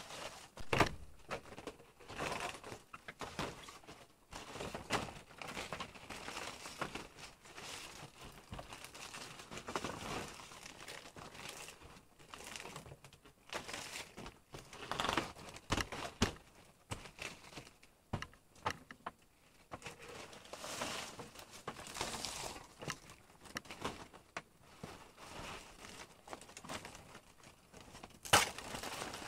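Irregular crackling and rustling of dry material being handled, with scattered sharp knocks; the loudest knocks come about a second in and near the end.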